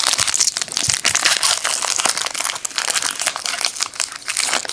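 Plastic wrapper of a trading-card pack crinkling steadily with many small crackles as it is handled and opened.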